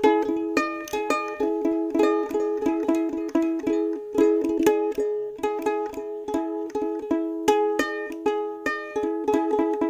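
Instrumental background music on a plucked string instrument: a quick picked tune of short notes, several a second, over a steady repeated pair of middle notes.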